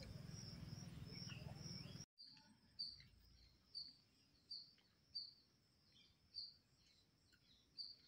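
Faint outdoor ambience with a short, high chirp repeated roughly once a second. A low hum under it cuts out abruptly about two seconds in.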